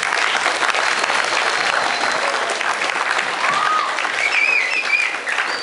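Audience applauding, a dense steady clapping, with a few high voices cheering about two-thirds of the way through.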